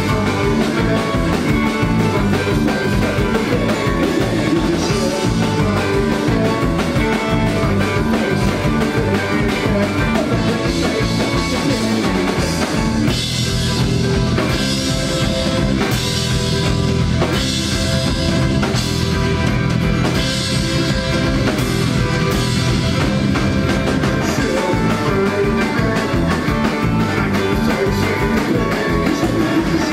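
A live rock band playing loud: drum kit, guitars and bass guitar. About halfway through the drumming turns to heavy crashing cymbals over a steady bass.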